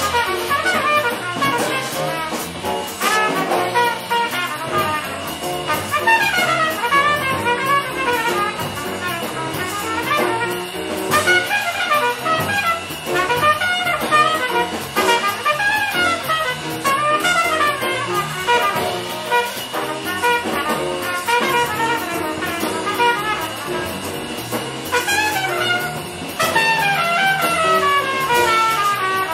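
Bebop jazz from a small group of alto saxophone, trumpet and piano, with a horn soloing in fast runs of notes, several tumbling down in pitch.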